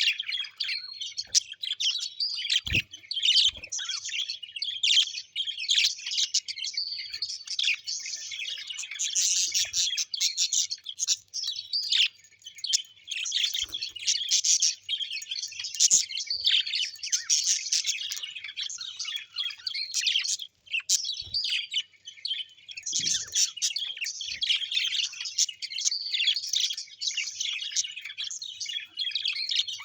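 A flock of small birds chirping and chattering continuously, many quick high calls overlapping.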